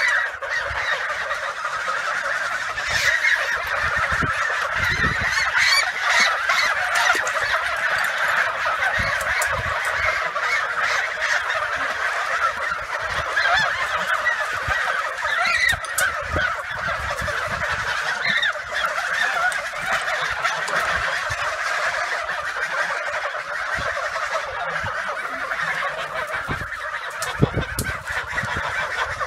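A flock of domestic geese honking, many calls overlapping into one dense, unbroken chorus.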